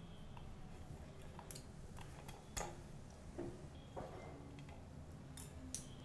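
Faint scattered clicks and taps of a metal fork against wooden skewers and a plastic plate as grilled pineapple pieces are slid off the skewers, the sharpest click about two and a half seconds in.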